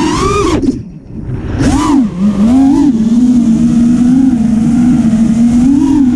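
5-inch FPV racing quadcopter's brushless motors and propellers, heard from the onboard camera: a buzzing whine whose pitch follows the throttle. Near the start it nearly cuts out for about a second as the throttle is chopped. It then comes back with a rising surge and settles into a steady cruise, with a brief swell near the end.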